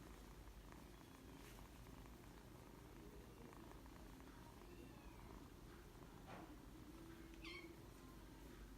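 Norwegian Forest Cat kitten purring faintly, with a short high meow near the end.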